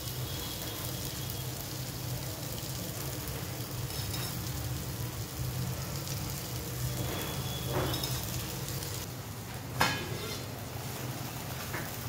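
Food sizzling steadily in hot oil in a pan on the stove, with a sharp knock of a utensil against the pan about ten seconds in.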